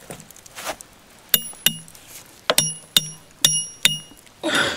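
Wire grill basket clinking against its metal stand as it is set lower over the coals: six sharp metallic clinks, each ringing briefly, then a short rushing noise near the end.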